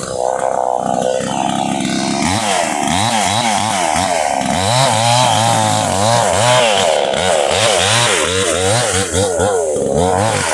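Chainsaw running, steady for the first two seconds or so, then revved up and down over and over, its pitch rising and falling about twice a second.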